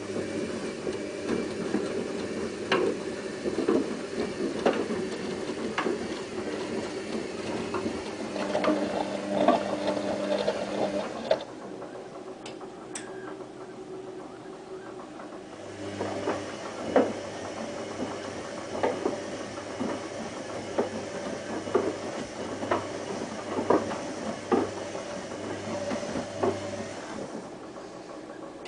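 Whirlpool AWO 3631 washing machine on a 40 °C wash, its motor turning the drum with repeated knocks and clicks from the tumbling load. The drum stops for a few seconds about halfway and then starts turning again, as in the wash phase's back-and-forth tumbling.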